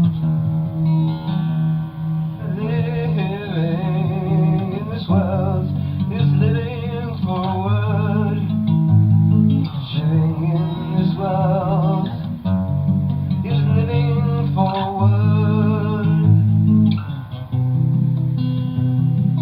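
Music, a break in a pop-rock song: guitar and bass play, with a wavering lead melody over them and no sung words.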